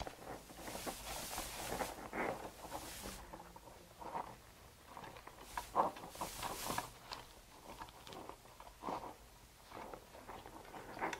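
Nylon harness webbing and a padded fabric lumbar pad being handled and pulled on a steel backplate: faint rustling, sliding and small clicks, with two longer rasping stretches, about a second in and around six seconds.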